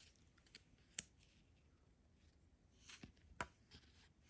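Near silence with a few faint clicks and taps, one about a second in and a small cluster about three seconds in: the contents of a phone box, a plastic phone case among them, being handled.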